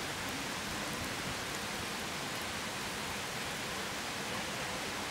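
Skewered salmon and vegetables sizzling over campfire coals: a steady hiss with a few faint crackles.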